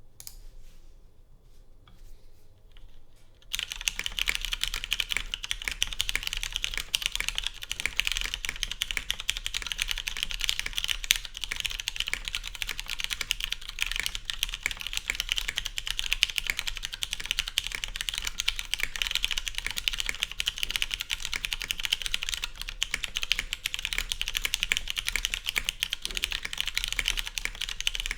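Fast, continuous typing on a custom mechanical keyboard with lubed Cherry MX Brown switches in a full polycarbonate plate with no foam dampening; a few scattered key presses at first, then a dense unbroken stream of key clacks from about three and a half seconds in.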